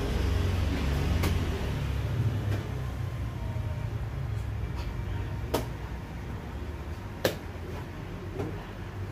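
A steady low background rumble, heaviest in the first couple of seconds, with a few sharp clicks from chess play at the nearby tables, the two loudest about five and a half and seven seconds in.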